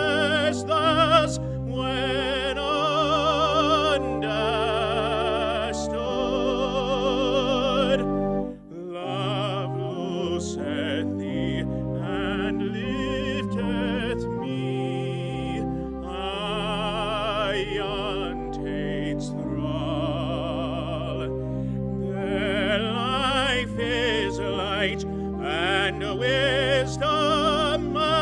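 A man singing a solo in a classical, operatic style, holding long notes with a strong vibrato over a sustained instrumental accompaniment. There is a brief break between phrases about eight and a half seconds in.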